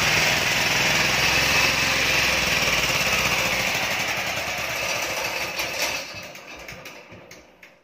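Hakata SDE6500E diesel generator's single-cylinder engine running, then shut off. It fades over the last few seconds into a few separate, slowing knocks as it coasts to a stop.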